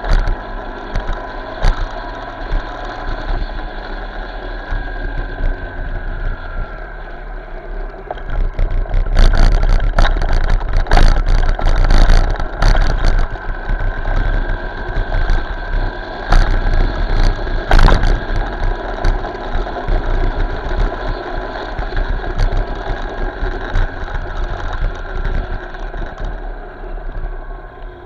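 Motorcycle ride in road traffic picked up by an Eken H9R action camera's built-in microphone: steady engine and road rumble with a noisy haze, growing louder and rougher for a few seconds about a third of the way in and again just past the middle.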